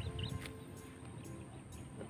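Quiet background music with long held notes. A few short, high chirps come near the start, over low thumps and rumble.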